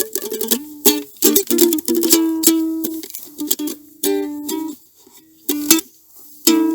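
Live instrumental music: a plucked string instrument strumming and picking chords, with a brief lull about five seconds in.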